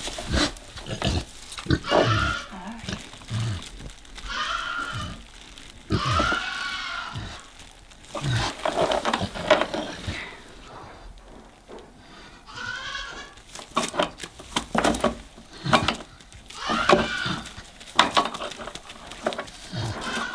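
Kunekune sow in labour giving a series of short, pitched calls several seconds apart, with knocks in between.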